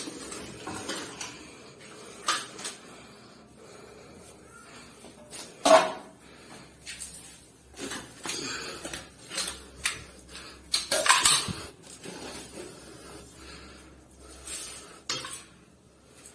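Metal objects clinking and clattering as they are handled, in irregular knocks and rattles; the loudest about six and eleven seconds in.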